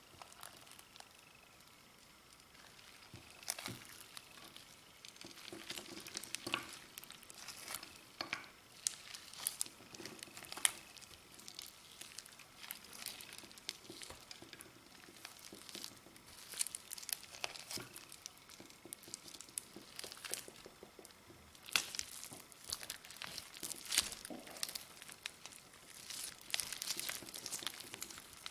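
Clear slime being kneaded and stretched by hand as eyeshadow is mixed in: irregular sharp clicks and crackles, sparse for the first few seconds and then coming thick and fast.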